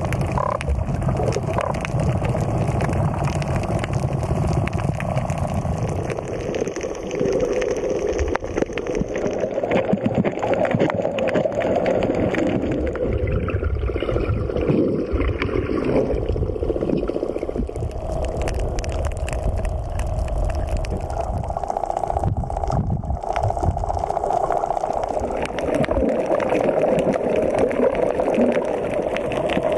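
Muffled underwater noise from a camera held below the surface: continuous churning and gurgling of water with fine crackles.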